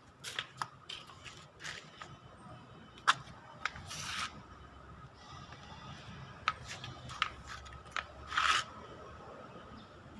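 Scattered sharp clicks and short scraping, rustling noises of objects being handled, over a faint steady high hum.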